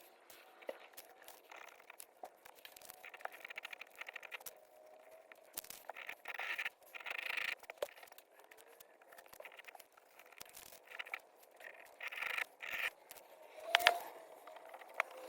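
Scraping and scratching on a rusty metal vice part by hand, in irregular strokes with scattered sharp clicks, and one louder knock near the end.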